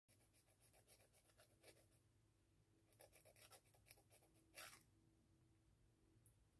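Faint rasping of a nail file drawn quickly back and forth across fingernails in short strokes. It pauses about two seconds in, resumes, and stops just before five seconds after one louder final stroke.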